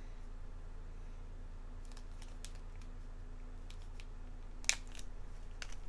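A few soft clicks and crinkles as packaging from the subscription box is handled, the loudest click about three-quarters of the way through, over a faint steady hum.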